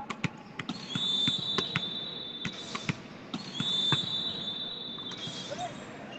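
Indoor volleyball rally: scattered sharp knocks of ball contacts and hand claps, over two long, high squealing tones of about two seconds each, the first starting about a second in and the second about halfway through.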